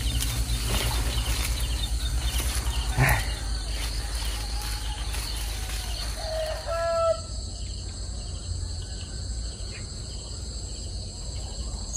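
Steady chorus of insects, mainly crickets, holding a continuous high chirring over a low rumble. A short pitched call stands out about six and a half seconds in.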